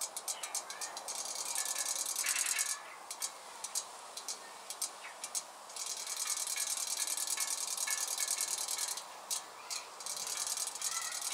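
Battery-powered robotic toy fish swimming at the water's surface, its tail mechanism giving a fast, high-pitched clicking rattle. The rattle comes in spells of a few seconds, with sparser ticks between.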